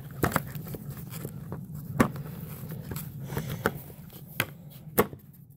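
Scattered plastic clicks and knocks as the brush roll is worked into the base of a Bissell PowerForce Compact vacuum. It is being refitted after going in the wrong way, and a low steady hum runs underneath.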